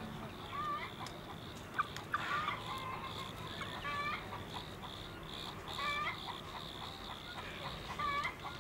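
Chickens clucking: a scatter of short calls from hens, several of them bending up and down in pitch.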